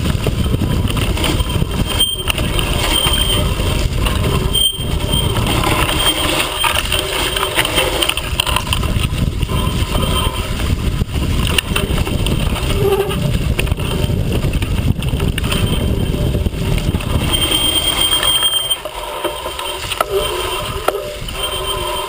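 A mountain bike rolling fast down a rough dirt and leaf-litter forest trail, heard from a camera mounted on the bike: heavy wind rumble on the microphone with a constant clatter of knocks and rattles from the bike and its knobby front tyre over the bumps. The rumble eases near the end.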